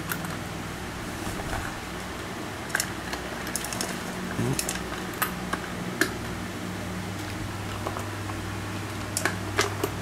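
A steady fan hum with a few light, irregular clicks and taps over it.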